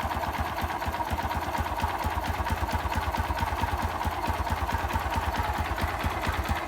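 Honda XRM 125's single-cylinder four-stroke engine idling steadily, with a fast, even beat. The owner hears a knocking noise in it and cannot tell which part of the engine it comes from.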